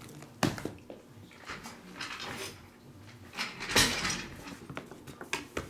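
Cardboard boxes of sealed trading cards being lifted and set down on a stack. There are a few sharp knocks from the handling, the loudest near four seconds in, with rustling in between.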